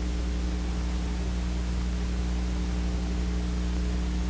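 Steady hiss with a low mains hum, the background noise of an old film soundtrack. No other sound stands out.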